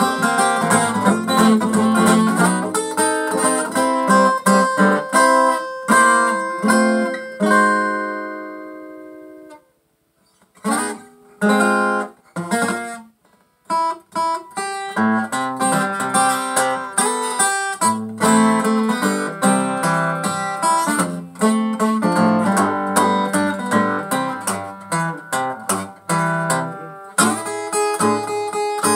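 Takamine EF360STT dreadnought acoustic guitar, its sides cracked, played solo in a blues. Steady strumming and picking lets a chord ring out and fade about eight seconds in. After a short pause there are a few separate chords, and steady playing resumes about fourteen seconds in.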